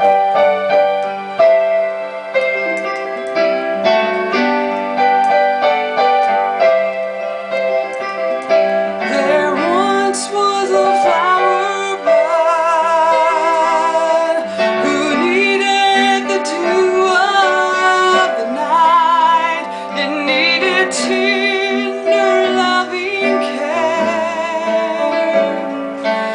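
Music: the piano or electric-piano introduction of a slow love song, with a wavering, vibrato melody line joining about nine seconds in.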